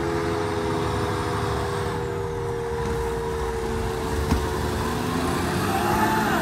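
Fire engine's diesel engine running steadily as the truck pulls out of the station and drives away. There is a single sharp click about four seconds in.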